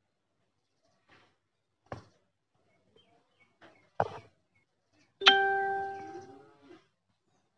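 Two sharp clicks, then a single struck, bell-like tone that rings and fades away over about a second and a half.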